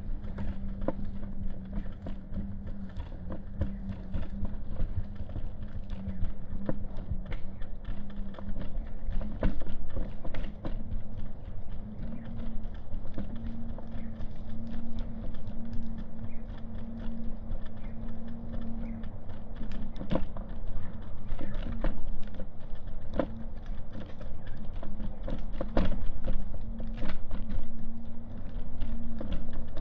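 Footsteps of someone walking on pavement, uneven short steps over a steady low hum.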